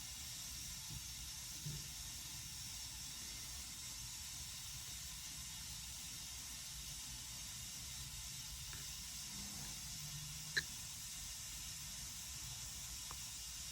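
Faint steady hiss with a low rumble beneath it, and one short click about ten and a half seconds in.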